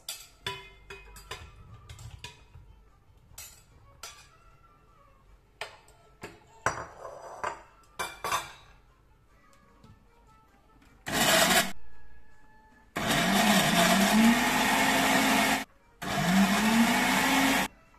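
Countertop blender with a glass jar, chopping boiled carrots in three pulses: a short burst, then two longer runs of a couple of seconds each, the motor's pitch rising as it spins up. Before the blending, a metal spatula clinks and knocks against a bowl and the jar as the carrots are scraped in.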